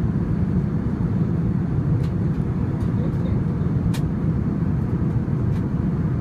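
Steady low rumble of a moving vehicle heard from inside the cabin, with a few faint clicks.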